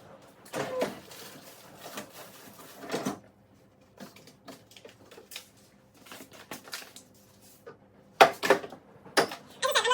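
Scattered clatter, knocks and rustling of food containers and fridge parts being handled during a fridge clean-out, the loudest a couple of sharp knocks about eight seconds in.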